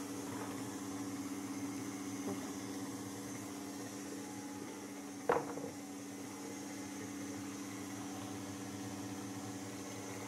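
KitchenAid Artisan stand mixer running steadily, its flat beater creaming lard and sugar in the steel bowl. One sharp knock comes about halfway through.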